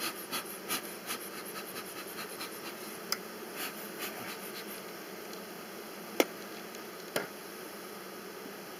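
Bee smoker bellows puffing several times in quick soft strokes, then two sharp clicks about a second apart, with honeybees humming around the open hive.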